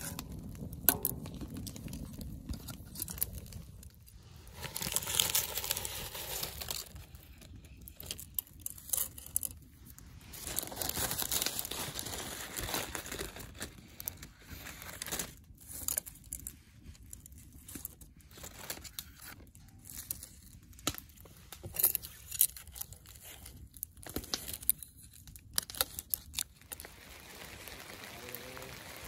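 Camp-cooking handling noises: crinkling and tearing with scattered clicks and knocks around a cast-iron pot as herbs, green onions and linguine go in. Rain begins pattering near the end.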